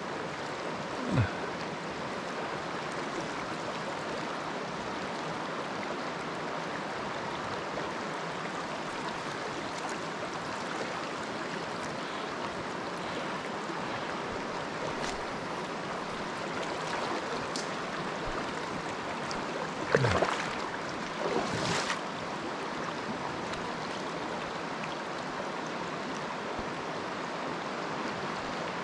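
Small mountain trout stream running in a steady rush of water. A short falling pitched sound about a second in and two brief pitched sounds around twenty seconds in rise above it.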